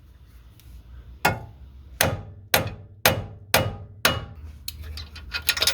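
Hammer striking steel, about six sharp blows at roughly two a second, knocking the outer tie rod end's tapered stud loose from the steering spindle. Lighter metal clicks follow near the end.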